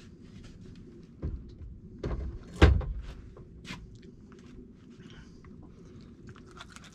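Handling knocks on a small fishing boat as a landing net is set down and a freshly landed fish is unhooked: a few dull thumps, the loudest about two and a half seconds in, followed by lighter clicks and rustles.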